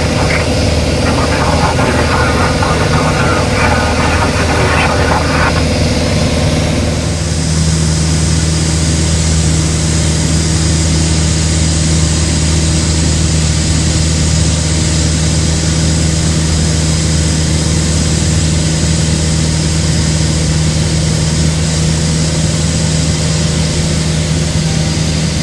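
Single-engine light aircraft's piston engine and propeller droning steadily, heard from inside the cabin. A brighter rushing hiss joins about seven seconds in.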